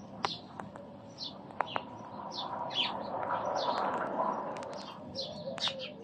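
Small birds chirping: short high chirps, about two a second. They sit over a soft rushing noise that swells in the middle.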